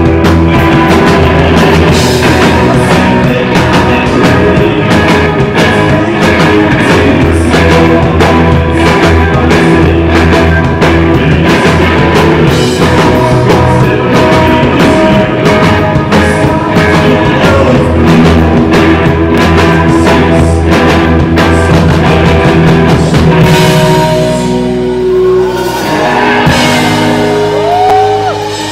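Live indie rock band playing loud: electric guitars, bass and drum kit. About five seconds before the end the drums thin out, leaving ringing guitars with sliding notes.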